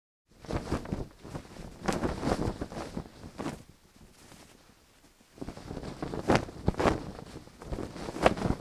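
Wind gusting, with a large cloth flag flapping and snapping in irregular bursts. It starts abruptly and drops away for about a second around the middle before picking up again.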